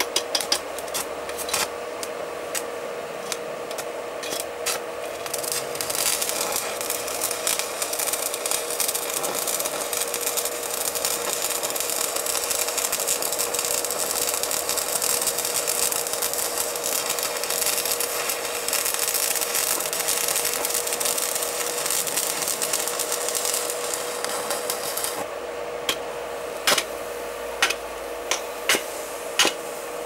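Thin wire overheating under test current: its insulation crackles and sizzles as it smokes, over a steady hum. The sizzle thickens about six seconds in and dies back around twenty-five seconds, leaving separate sharp crackles near the end.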